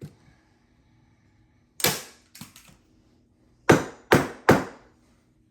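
A hand staple gun firing staples into the wooden frame of a screen door: about five sharp snaps, two close together about two seconds in and three in quick succession near four seconds.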